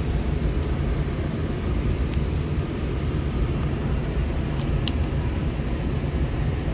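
Steady low rumble of indoor airport-terminal background noise, with a few faint light clicks about five seconds in.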